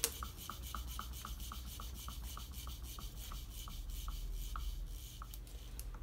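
Small homemade Stirling engine with a CD flywheel turning after a hand spin, its crank mechanism ticking about four times a second over a steady rubbing. The ticks space out toward the end as the flywheel slows.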